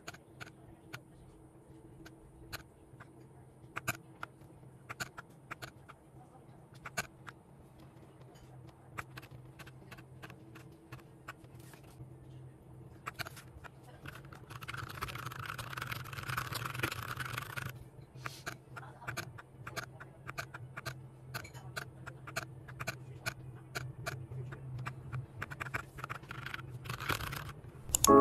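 Irregular clicking of keys on a new RGB mechanical keyboard being pressed and handled, with a scraping, rustling noise for a few seconds about halfway through, over a faint steady hum.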